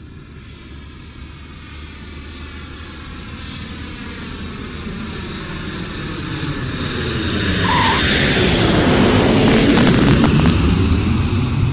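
Jet airliner flying past, its engine noise building steadily louder over about eight seconds and peaking near the end, with a sweeping, phasing hiss as it draws near.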